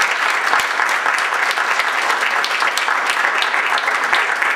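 An audience applauding steadily, with many hands clapping at once.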